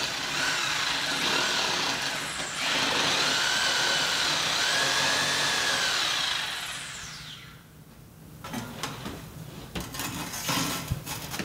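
Sawzall reciprocating saw cutting through asphalt shingles and plywood roof sheathing to trim the edge of the mast hole, in two runs with a short break between them. The motor winds down about seven seconds in, and a few light knocks and taps follow.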